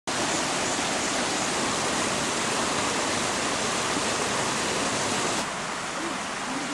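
Steady rush of flowing water from a mountain stream, dropping a little in level about five and a half seconds in.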